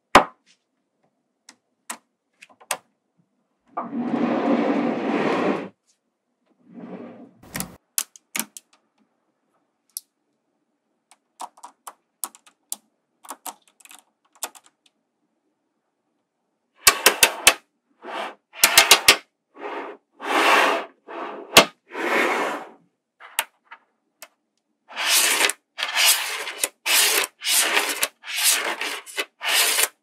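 Small magnetic balls snapping together in sharp single clicks, with stretches of rapid clattering and scraping a second or two long.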